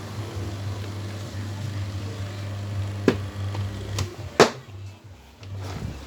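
Sanex electric fan motor humming steadily under power, with several sharp clicks; the hum stops about four and a half seconds in, right after the loudest click.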